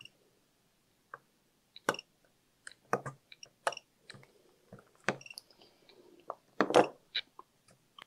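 Spot-welder board firing weld pulses through hand-held probes to fix a tab onto an 18650 lithium-ion cell: irregular short chirps and sharp snaps, about a dozen over a few seconds, the loudest one late on.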